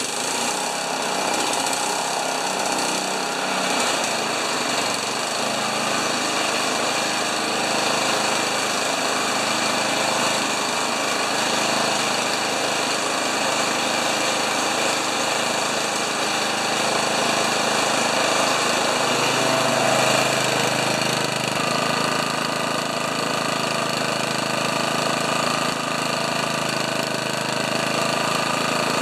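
Honda HRA214 lawn mower's single-cylinder OHV engine running steadily on the bench, just started after its carburettor bowl was cleaned. Its sound changes about twenty seconds in as it is brought up from an idle of about 1,500 rpm to a high speed of about 3,200 rpm, running well.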